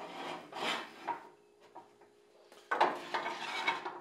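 Metal parts being handled: rubbing and scraping with light clatter, in two spells with a quiet gap between, the second louder.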